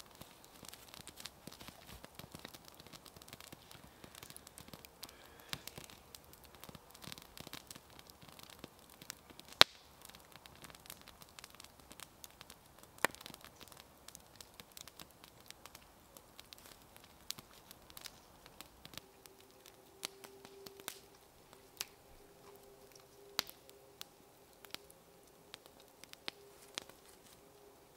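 Campfire crackling, with frequent small sharp pops and a couple of louder cracks. About two-thirds of the way in, a faint steady whine joins.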